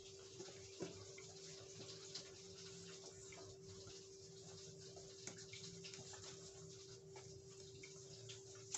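Faint scraping and soft ticks of a spoon stirring dry glutinous rice flour and sugar in a stainless steel bowl, over a steady faint hum.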